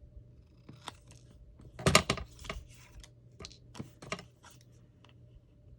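Paper and craft tools handled on a work table: scattered clicks and taps, the loudest cluster about two seconds in.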